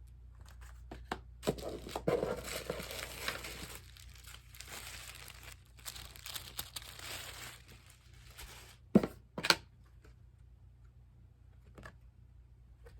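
Packaging crinkling and tearing as a box is unpacked by hand, then two sharp knocks about nine seconds in.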